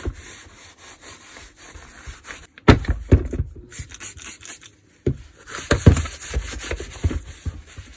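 Cleaning rag rubbing and wiping the plastic housing of a cordless rotary hammer, freshly sprayed with engine cleaner, in irregular strokes with handling knocks. The strokes come loudest about three seconds in and again over the last three seconds.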